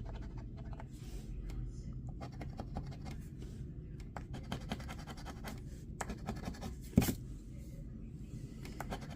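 Scratch-off lottery ticket being scratched: many short, quick scrapes across the coating, with a sharp tap about seven seconds in.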